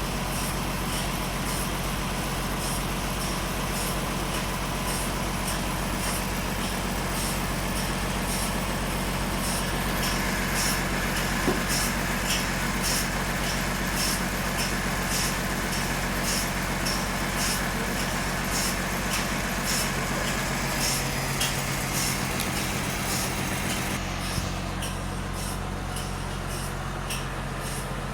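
Sawmill machinery running: a steady engine drone with rapid high ticking. A thin whine comes in about ten seconds in and fades about ten seconds later, and the high ticking thins out near the end.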